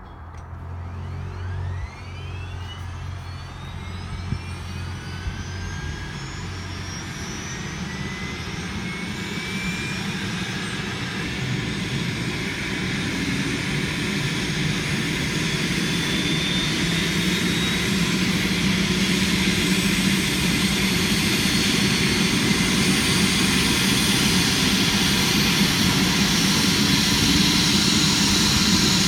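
Airbus H145 rescue helicopter starting up on the ground. Its turbine whine climbs steadily in pitch over the first fifteen seconds or so, while the low beat of the main rotor quickens as it comes up to speed, and the whole sound grows steadily louder.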